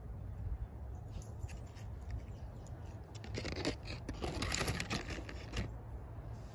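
Rabbits scampering over dry leaves and dirt: rustling and scratching that starts about three seconds in and lasts about two and a half seconds, over a steady low rumble.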